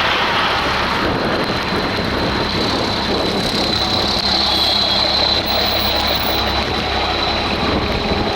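Steady rushing noise of wind, rain and road traffic with a low rumble, and a faint high whine that swells in the middle.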